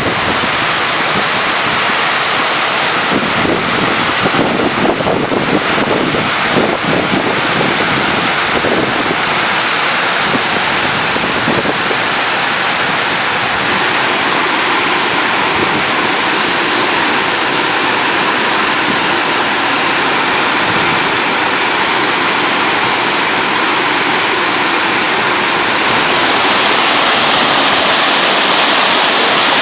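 Waterfall water pouring, a loud steady rush, with gusty low buffeting on the microphone during the first ten seconds or so.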